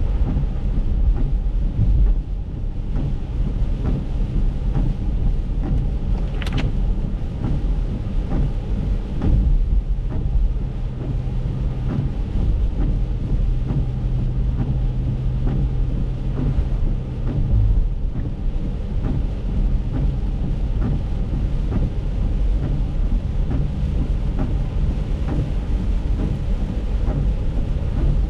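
Acura MDX driving on a rain-soaked road, heard from inside the cabin: a steady low rumble of tyres and car, with rain ticking on the windshield. A short high squeak about six seconds in, and a steady low hum from about twelve to seventeen seconds.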